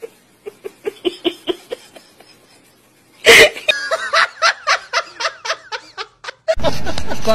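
A person laughing hard in rapid, rhythmic bursts, about four or five a second. About three seconds in comes a sudden loud burst, then more fast laughter.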